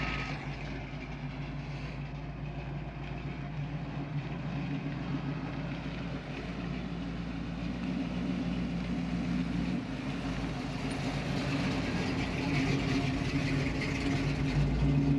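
Chevrolet 350 small-block V8 with a small cam in a 1984 C10 pickup, running at low speed with a steady low engine note that grows louder as the truck rolls closer.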